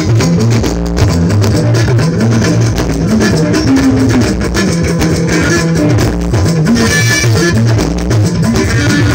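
Live band music played loud through a PA: electric guitar over a steady drum-kit beat and a moving bass line.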